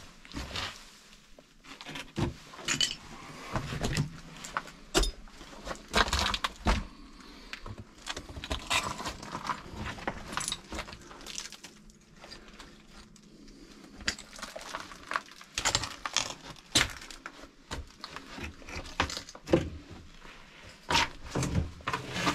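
Footsteps crunching and scraping over loose rubble and debris on an uneven floor, with irregular sharp clicks and clinks.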